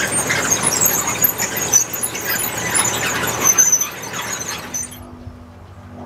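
Potato harvester at work: potatoes rattling and knocking as they tumble into the machine's hopper, with high squealing from the machinery. About five seconds in this stops abruptly, leaving a quieter low engine hum.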